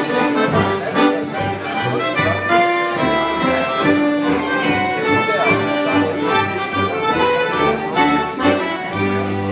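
Live Danish folk dance band of tuba, accordion, two fiddles and clarinet playing a scottish (schottische) dance tune, with a pulsing tuba bass under the accordion and fiddle melody. Near the end the band lands on a held final chord.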